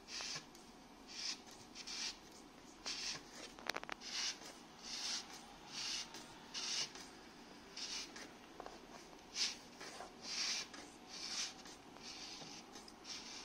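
Short scratchy rubbing sounds, about one a second, as the Formlabs Form 3's leveling foot is turned by hand under the printer, with one sharp click about four seconds in.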